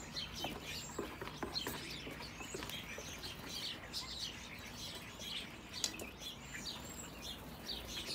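House sparrows chirping over and over, many short overlapping chirps, with scattered light taps.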